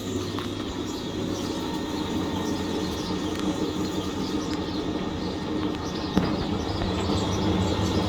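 Fisher & Paykel MW511 top-loading washing machine spinning during its spray-rinse stage: a steady machine hum that grows a little louder, with faint ticking over it.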